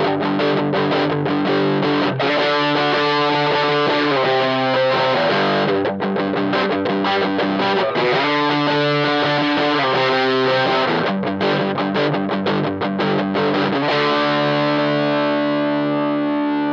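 Distorted electric guitar played through an effects setting in a sound check of the Eagletone AL-630G, moving through a run of chords and riffs, then settling on one chord left to ring out near the end.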